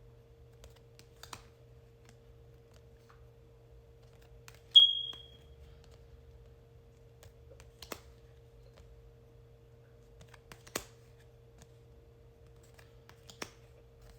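Oracle cards being flipped and laid down one at a time: a few sparse, sharp clicks a couple of seconds apart. The loudest comes about five seconds in, with a brief high ring, over a steady faint hum.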